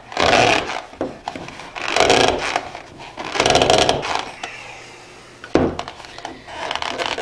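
A wad of toilet paper being forced and twisted down into the plastic filter hole of a Brita pitcher, paper and plastic rubbing and creaking in three hard pushes about a second and a half apart. A single sharp knock follows near the end.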